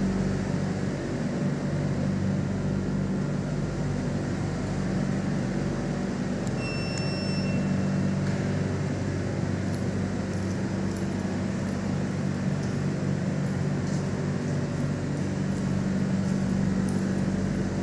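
A steady low mechanical hum that swells and eases slightly, with a short high electronic beep about seven seconds in.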